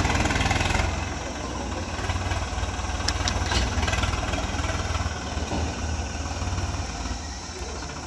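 Swaraj 855 FE tractor's three-cylinder diesel engine running hard as it pulls a loaded water tanker that is stuck in soft dirt; louder for about the first second, then steadier. A few short clicks about three seconds in.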